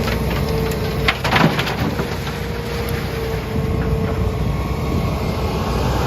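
Hitachi Zaxis 210 excavator's diesel engine running steadily, with a few sharp knocks a little over a second in.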